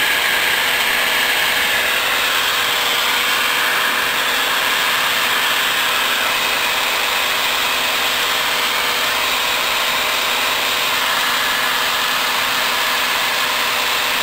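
Steady drone of a single-engine light aircraft's engine and propeller with rushing airflow, heard inside the cockpit in cruise flight. The noise stays even throughout, with a faint steady hum underneath.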